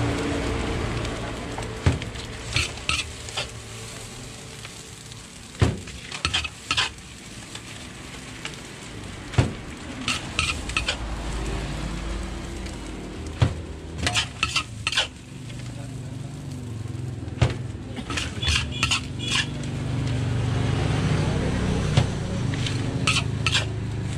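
Fried rice sizzling in a large steel wok, with a metal spatula repeatedly clanking and scraping against the wok in quick clusters as the rice is tossed.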